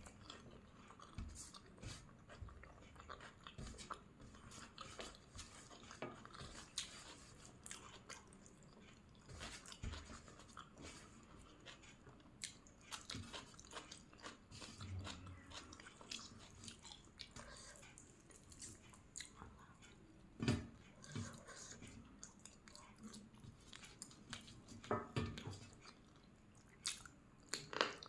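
Soft, close-up chewing and eating of chicken and egg biryani: a steady run of short wet mouth clicks and small crunches, with a few louder bites past the middle.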